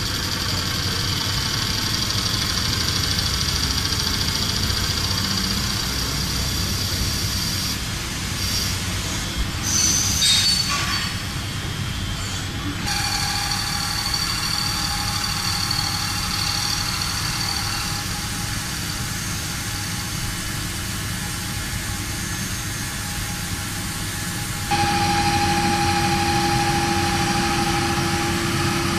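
WFL M60 Millturn CNC turn-mill machine cutting metal: a steady machining din with a high, steady whine from the spindle and cut. A brief louder scraping rise about 10 seconds in; the sound changes abruptly about 13 and 25 seconds in, ending with a milling spindle cutting under coolant spray and two clear steady tones.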